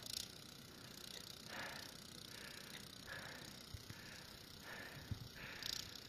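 Faint crunching in deep snow: a handful of short, irregular strokes about a second apart.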